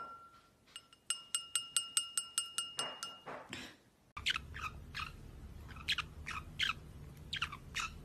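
A wine glass tapped in quick succession, about seven strikes a second, each strike ringing at the same clear pitch, stopping about three seconds in. After a break, a small yellow parakeet chirps a run of about ten short calls, each falling in pitch.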